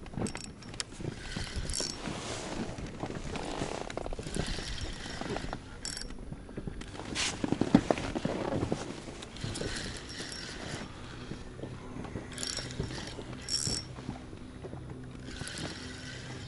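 Spinning reel being wound in repeated spurts, a mechanical whirring with clicks, as a hooked fish is played from the boat.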